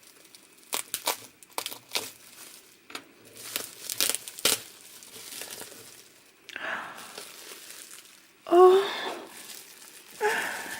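Packaging crinkling, crackling and tearing as a doll is unwrapped, with a string of sharp crackles and then a softer rustle. A short, loud vocal exclamation comes about two-thirds of the way through.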